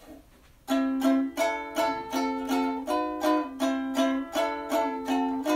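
Intro music: strummed chords on a plucked string instrument in a steady rhythm, starting about half a second in.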